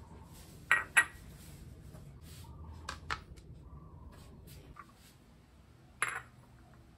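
A ceramic bowl set down on a hard kitchen countertop: two sharp clacks about a second in, a few light taps from a plastic cutting board and knife being handled around the middle, and another clack near the end as the bowl is put down again.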